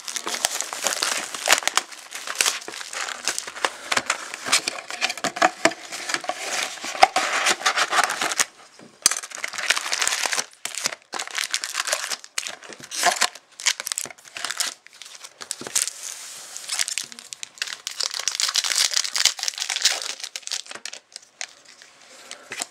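Clear plastic shrink wrap crinkling and tearing as it is slit and peeled off a sealed box of trading cards, then foil card packs rustling as they are lifted out of the box and stacked. The crackling comes in irregular handfuls with a few short pauses.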